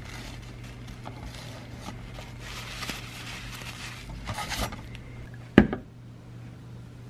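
Tissue rubbing old thermal paste off the aluminium base of a CPU cooler heatsink in short scrubbing strokes, over a steady low hum, with one sharp knock about five and a half seconds in.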